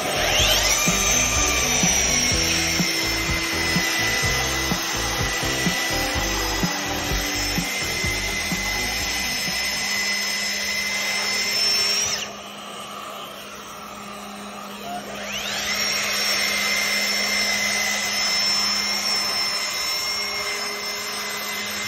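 Milwaukee M18 FUEL 3" x 18" cordless belt sander spinning up with a rising whine, then running steadily as it sands a hardwood slab. It stops about twelve seconds in and starts again about three seconds later with a second rising whine.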